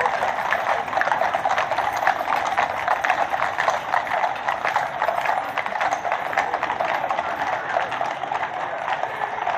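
Hooves of many Household Cavalry horses clip-clopping on the road as a mounted column walks past, a dense, irregular clatter of overlapping hoof strikes.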